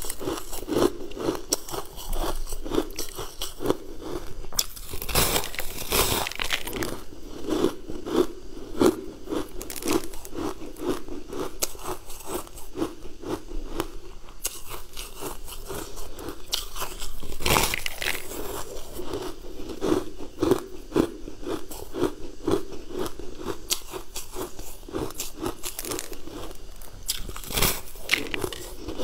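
Crunching and chewing of a frozen pink ice slab bitten off in chunks: a dense run of crisp crackles, with a few louder bites standing out.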